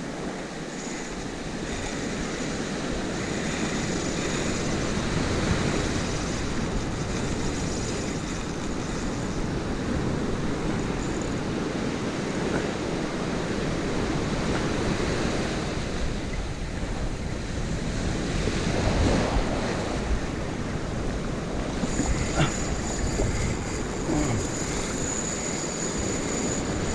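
Ocean surf breaking and washing up the shore in a steady rush, with wind rumbling on the microphone.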